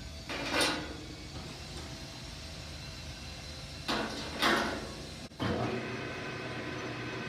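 Metal parts on a metal lathe being handled while a larger drill is set up: three short scraping slides under a steady machine hum, then a sudden step up in the running noise at about five and a half seconds.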